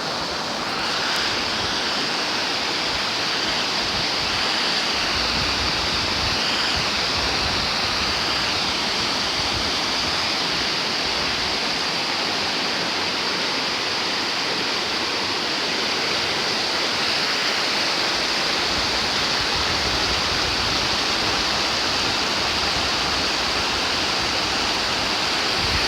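Canyon river rushing over rocks and falls, a steady dense rush of water.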